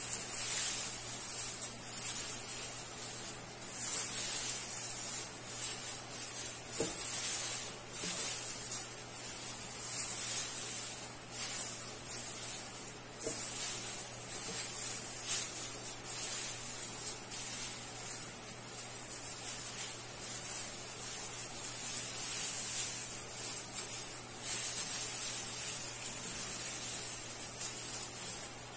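Plastic tinsel garland rustling as it is handled and wound around a wire ring: a continuous crisp, hissy rustle that swells and fades unevenly.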